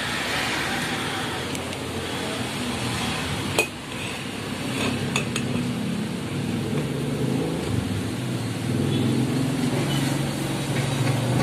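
Metal spoon scraping and clinking on a plate as flour is worked into raw chicken pieces by hand, with one sharp clink about three and a half seconds in and two lighter ticks soon after. A low hum builds in the background through the second half.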